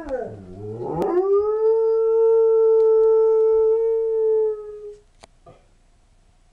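German Shepherd–Husky mix dog howling: a short swoop down and back up, then one long steady howl that ends about five seconds in.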